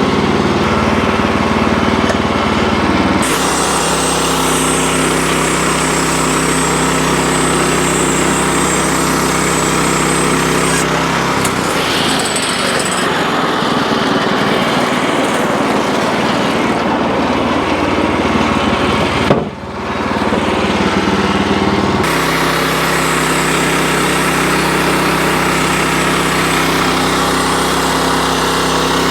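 Wood-Mizer LX25 band sawmill running steadily while sawing red oak. Its engine tone shifts a few times, with a brief sharp drop about two-thirds of the way through.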